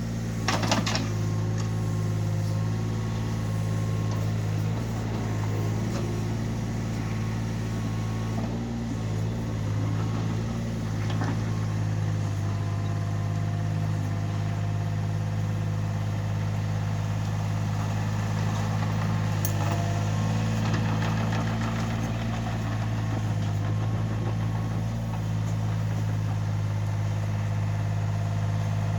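Yanmar B27 backhoe's diesel engine running at a steady speed, with a few sharp clanks: one about a second in, more in the middle and later on.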